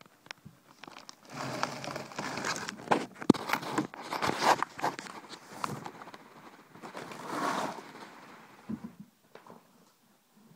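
Rustling and knocking handling noise close to a phone's microphone as the phone is moved about and set down, with several sharp knocks among the rustle; it quietens near the end.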